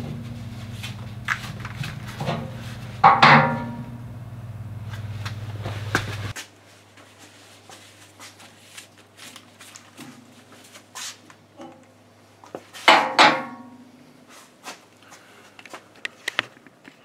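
Metal clanking and tapping on a steel tractor loader bucket as drilled brackets and tools are handled: a sharp ringing clank about three seconds in and another about thirteen seconds in, with lighter taps and rustling between. A steady low hum underlies the first six seconds and stops suddenly.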